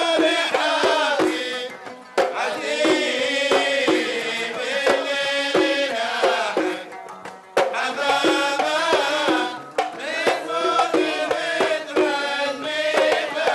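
Kuwaiti sawt music: a male voice singing over the quick beat of mirwas hand drums, with a short drop about seven seconds in.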